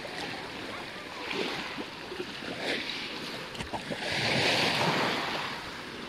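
Calm sea water washing and lapping around people standing in it, with a louder surge for about a second around four seconds in.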